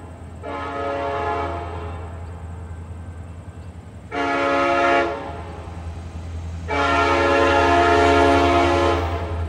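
Diesel locomotive's multi-tone air horn sounding the grade-crossing pattern: a long blast, a short one about four seconds in, then a long one held for about two seconds. A low steady rumble of the approaching train runs underneath.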